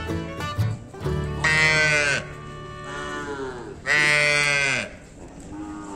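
A calf bawling: two loud calls about two seconds apart, with a quieter call between them, each dropping in pitch as it ends.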